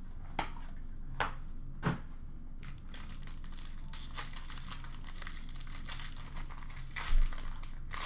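Plastic wrapping of a hockey card pack crinkling and tearing as it is opened by hand. There are a few sharp clicks in the first two seconds, then continuous crinkling, and a louder knock about seven seconds in.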